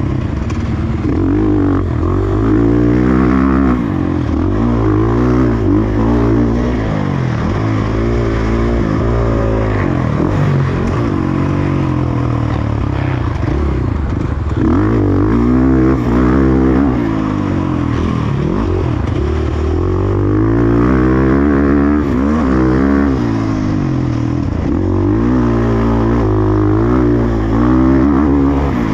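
Motocross bike engine being ridden hard, revving up and falling off again and again as it accelerates and shuts off around the track.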